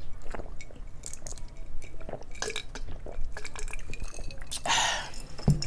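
Close-miked eating and drinking: gulps of a drink from a glass jar, with small clicks and wet smacks from crab and shrimp being picked apart and chewed. A short, louder rasp comes near the end.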